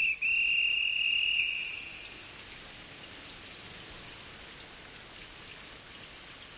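A referee's whistle: one short peep, then a long steady blast of about a second and a half. Steady rain follows.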